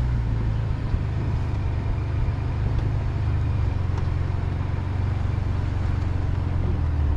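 Pickup truck running: a steady low engine rumble with road noise, easing a little about half a second in as the truck is pulled over onto the road's edge.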